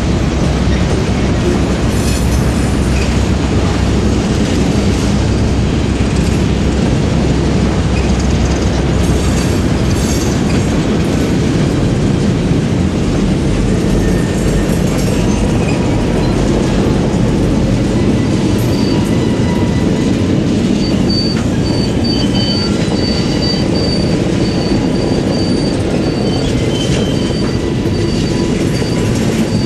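Freight cars rolling past close by, a steady loud rumble and clatter of steel wheels on rail. A thin, high wheel squeal comes and goes from about twenty seconds in.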